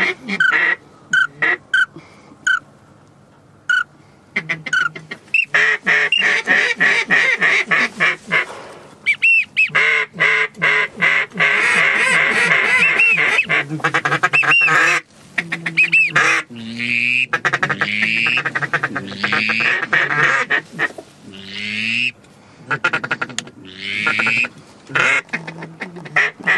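Duck calls blown loudly to bring ducks in: fast runs of short quacks, then several strings of quacks that step down in pitch between about 16 and 22 seconds in.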